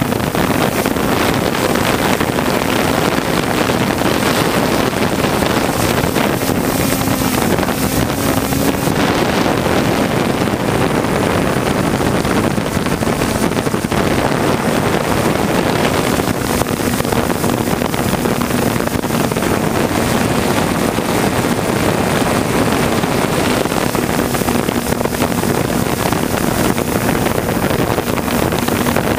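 3DR Solo quadcopter's motors and propellers running, picked up by the camera on board: a loud, steady whirr with a hum that drops slightly in pitch about halfway through, mixed with wind noise on the microphone.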